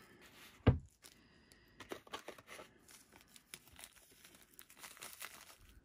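Small plastic bag of black salt crinkling faintly as it is handled in the fingers, with one dull thump a little under a second in.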